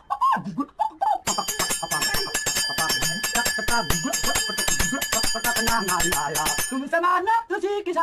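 Small metal percussion jingling and ringing in rapid strokes for several seconds. It stops about seven seconds in, when a man starts singing.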